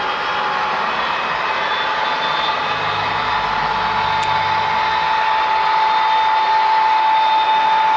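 Model train boxcars rolling along the track with a steady rushing rattle of wheels on rail. A steady high whine comes in and grows louder through the second half.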